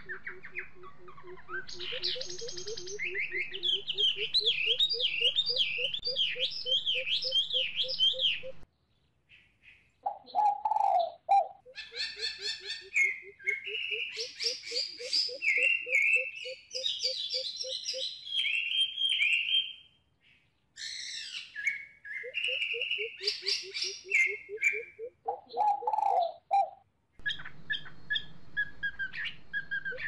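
A coucal's deep hooting call: a fast run of low, evenly repeated hoots, about four or five a second, with higher chirps and whistles of smaller birds over it. The sound cuts off suddenly twice and starts again.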